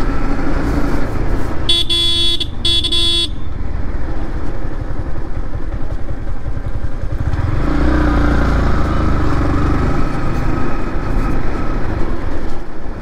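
A Yamaha MT15 motorcycle riding along, with a steady low engine and road rumble. A vehicle horn honks twice about two seconds in, the first blast nearly a second long and the second shorter. The engine note grows louder for a couple of seconds from about seven and a half seconds in.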